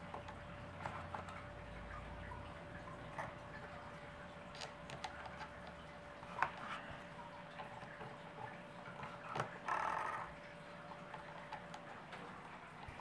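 Faint, scattered clicks and light scrapes of a small flat-head screwdriver working the screw of a plastic phone mount on a drone remote, with a short scrape about ten seconds in.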